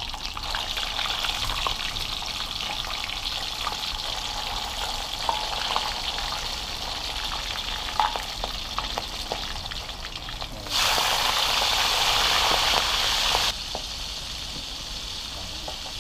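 Catfish frying in hot oil in an aluminium wok: a steady sizzle with small pops and crackles. About eleven seconds in, the sizzle suddenly turns much louder for nearly three seconds, then drops back to the steady level.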